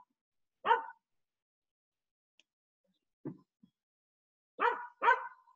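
A dog barking over a video call: one bark about a second in and two quick barks near the end, with a single low thump in between.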